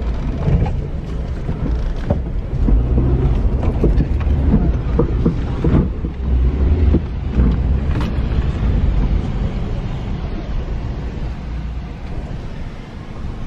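Engine and tyre rumble inside a Honda CR-V's cabin as it drives over a rough dirt and sand track, with frequent knocks and rattles from the bumps, mostly in the first half.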